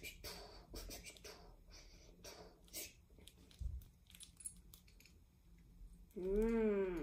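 Faint rustling and light clicks as a plush hand puppet is moved about, with a soft thump midway. Near the end, a short hummed voice sound that rises and then falls in pitch.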